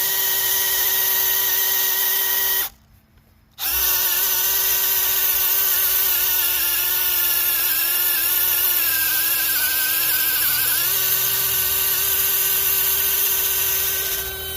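DeWalt DCD996 20V brushless cordless hammer drill on its low speed, boring into wood with a 1-inch spade bit. The motor runs with a steady whine, stops for about a second near the three-second mark, then starts again. Its pitch sags a little for a few seconds in the middle as the bit bites.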